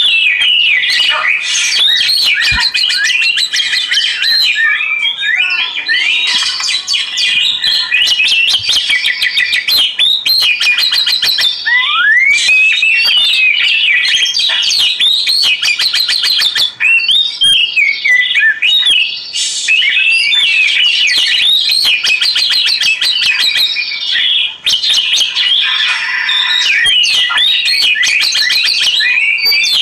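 Oriental magpie-robin (kacer) singing continuously, a rapid, varied run of rising and falling whistles and fast chattering trills with hardly a pause.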